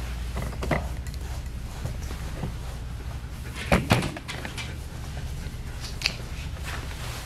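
Knocks and clunks of a large dog shifting its feet and sitting down on a grooming table, with two loud knocks close together about halfway through and lighter ones near the start and near the end, over a steady low hum.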